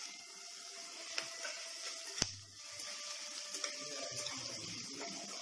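Chopped onion sizzling in hot oil in a kadhai while being stirred with a spatula: a soft, steady sizzle with light scraping taps, and one sharp tap on the pan about two seconds in.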